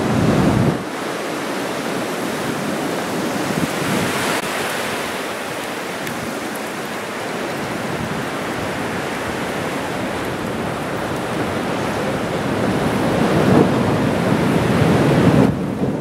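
Strong Santa Ana offshore wind buffeting the microphone, mixed with the rush of heavy shorebreak waves crashing: a dense, steady noise, louder in the first second, that swells again in the last few seconds before easing off just before the end.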